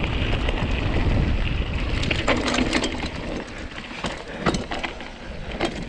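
Mountain bike rolling fast down a dirt trail: a steady rumble of wind and tyre noise on the bike-mounted camera, crossed by sharp clicks and clatters from the bike. The noise eases off toward the end.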